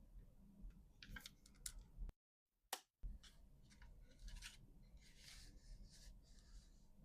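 Scissors snipping through paper in short, quiet strokes, with paper rustling between the cuts; the sound drops out completely for about a second, a little after two seconds in.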